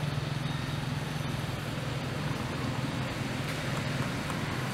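A steady low hum under an even hiss, unchanging throughout.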